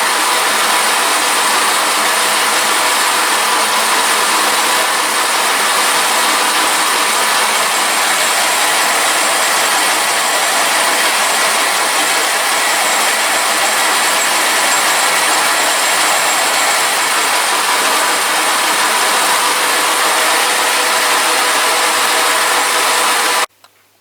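Workshop machine running steadily, a loud even hiss with several constant whining tones over it, then stopping abruptly near the end.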